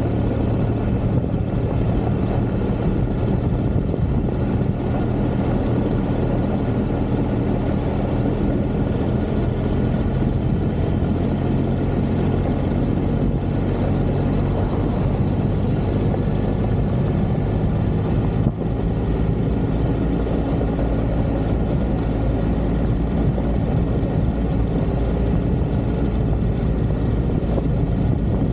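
Motorcycle engine running at a steady cruising speed, heard from a camera mounted on the bike, over a constant rush of wind and tyre noise on a gravel road.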